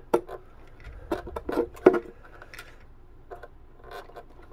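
Irregular light clicks and taps of pliers and thin brass wire being worked against a carbon-fibre boat hull at its antenna through-hole, with a sharper click about two seconds in.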